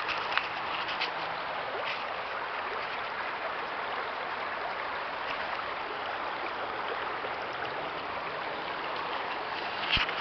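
Steady rush of flowing river water, with a few faint clicks near the start.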